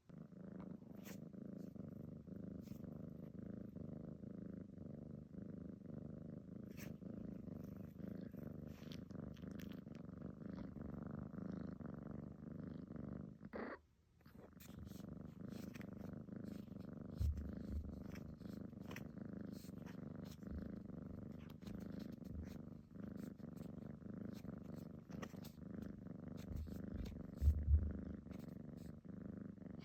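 Domestic cat purring steadily and close up, breaking off briefly about halfway through. A few soft low thumps come in the second half, the loudest near the end.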